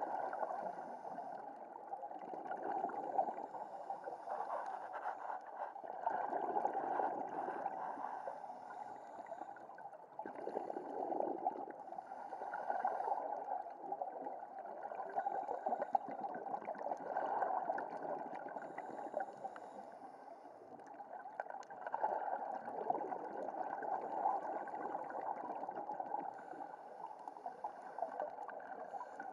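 Underwater bubbling and gurgling from a scuba diver's regulator exhaust, swelling and easing in waves every few seconds with the breaths.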